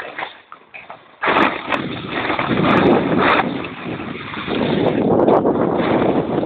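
Wind buffeting the microphone, setting in suddenly about a second in as a loud, uneven rushing noise.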